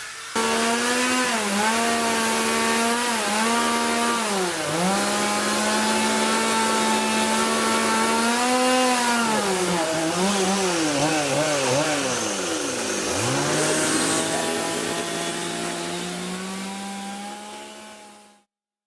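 Chainsaw running at high revs, its pitch dipping again and again as it loads up cutting wood. It fades out near the end.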